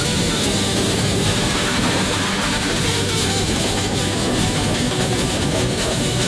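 Instrumental country music, guitar-led with a steady rhythm and no singing.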